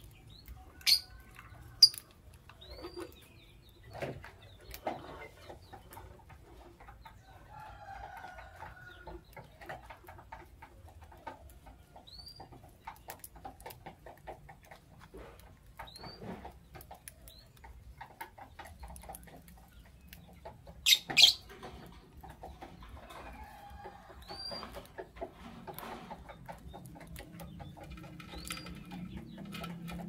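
Pair of blue lovebirds calling: a few sharp, shrill chirps (twice near the start and a close pair about two-thirds through) and several short rising calls. Many small clicks and taps as they peck and move about the wooden feeder.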